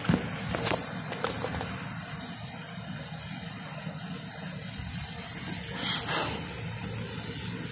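Heavy rain pouring down in a steady hiss, with a few faint clicks.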